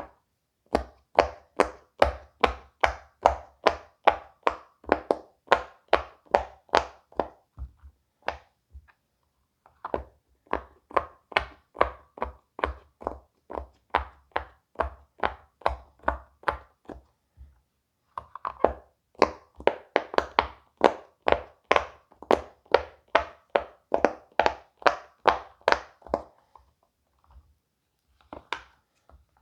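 Silicone pop-it fidget toy bubbles pressed one after another, each giving a sharp pop, about three a second, in three long runs with short pauses between them and a few last pops near the end.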